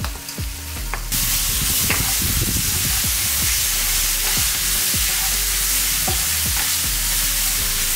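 Sliced onions, green peas and ginger-garlic paste sizzling in oil in a nonstick frying pan, stirred with a wooden spatula that scrapes and taps on the pan. The sizzle jumps to a louder, steady hiss about a second in.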